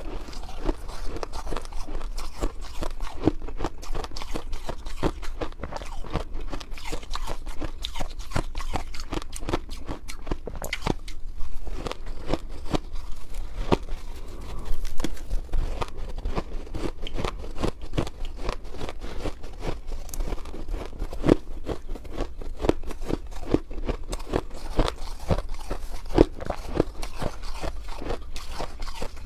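Shaved ice crunched and chewed close to the microphone: a dense run of short, crisp crunches, with a metal spoon scooping through the ice in a glass bowl.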